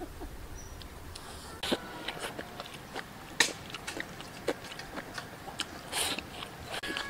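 Close-up eating sounds: chopsticks clicking against a ceramic bowl as food is shovelled from the bowl's rim into the mouth, with a few louder slurps and chewing.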